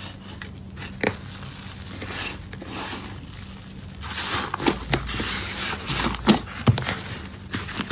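Slime being worked by hand, with crinkly crackling, squishing and sharp little pops. A single click comes about a second in, and the pops come thicker and louder in the second half.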